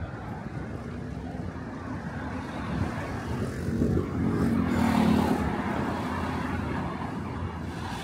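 Road traffic on a busy city street, with one vehicle's engine passing and loudest about four to five seconds in.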